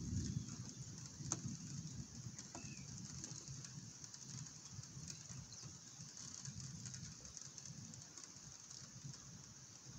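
Steady rain, with a low rumble of thunder dying away over the first few seconds. A faint bird chirp sounds once about two and a half seconds in.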